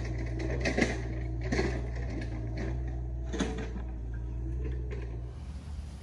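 Mini excavator running with a steady low engine hum, with several sharp metallic clanks and knocks from the machine at work, the loudest about a second in and again near the middle. Near the end this gives way to an even hiss.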